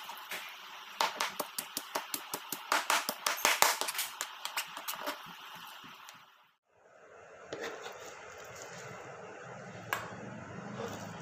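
Kitchen knife rapidly chopping raw chicken breast into mince on a cutting board: a quick, uneven run of sharp knocks lasting about five seconds. After a short break, quieter scraping and handling as the mince is pushed into a steel bowl, with one sharp knock near the end.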